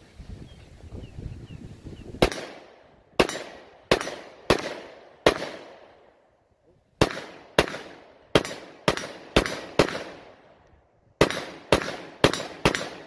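Arex Rex Delta 9mm pistol firing 115-grain FMJ rounds: fifteen shots in three quick strings of five, six and four, starting about two seconds in, each crack trailing off in an echo.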